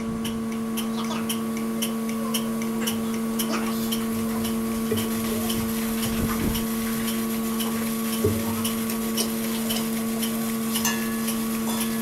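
Steady machine hum with a regular ticking about twice a second.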